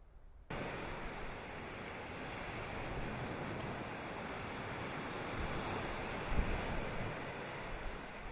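Sea waves surging and breaking against the foot of a rocky sea cliff, a steady wash of surf that starts suddenly about half a second in. One wave breaks a little louder about six seconds in.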